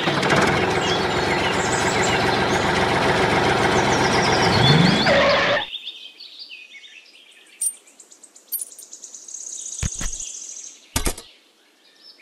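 A loud, steady, dense noise with a short rising tone near its end cuts off suddenly about halfway through. Birds then chirp over a quiet background, with a few sharp knocks as small toy pieces are handled.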